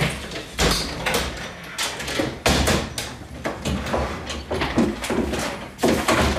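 Wooden cupboard doors and drawers being pulled open and banged shut in quick, irregular succession, with knocks and clatter of a room being rummaged through.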